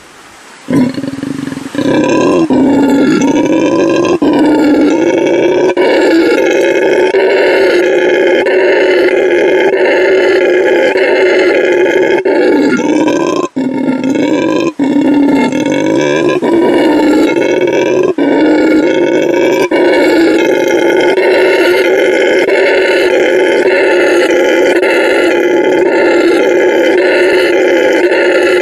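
Howler monkeys roaring: a loud, deep, drawn-out howl with a wavering pitch, starting about two seconds in and carrying on almost unbroken, with brief breaks about halfway through.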